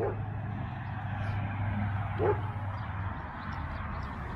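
A dog barks once, briefly, about two seconds in, over steady traffic noise with a low hum that fades about three seconds in.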